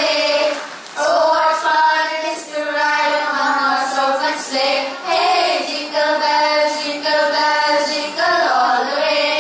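Group of children singing a song together in long held notes.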